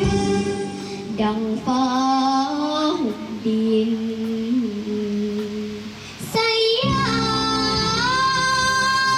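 A young girl sings a Thai luk thung song into a microphone over backing music, holding long, drawn-out notes. The accompaniment thins out for a few seconds, then returns in full under a long sustained note near the end.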